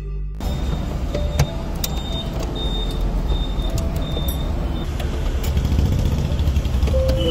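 Steady low rumble of motor vehicles, with scattered sharp clicks and short, repeated high-pitched tones.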